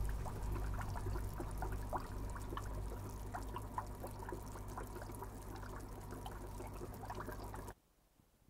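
Aquarium water bubbling and trickling, with many small droplet-like ticks over a steady low hum. It cuts off suddenly near the end.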